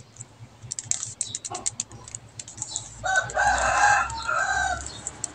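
Quick plastic clicks of a 3x3 Rubik's cube being twisted through a move sequence. About three seconds in, a rooster crows, one long call in two parts, louder than the clicks.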